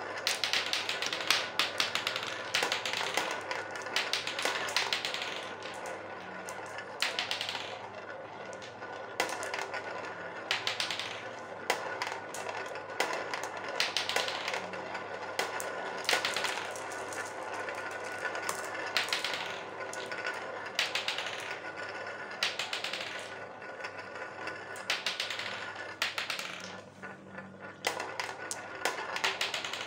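Glass marbles rolling round a plastic funnel bowl: a steady rolling rumble with many sharp clicks and clacks, louder every second or two, as the marbles knock together and drop through the hole in the middle.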